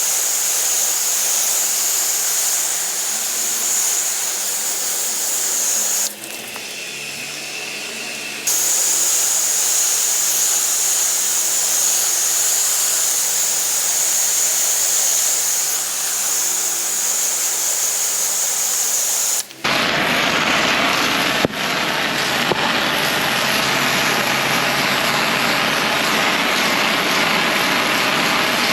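Pressure washer spraying: a loud, steady hiss of the water jet over the machine's running motor. The spray cuts out for about two seconds a few seconds in, then resumes. About two-thirds of the way through, the sound changes abruptly to a fuller, rougher rush.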